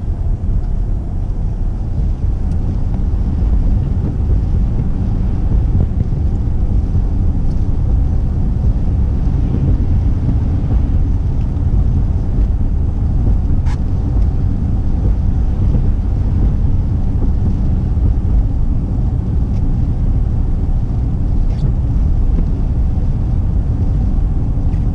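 Car driving along at steady speed: a constant low road and engine rumble.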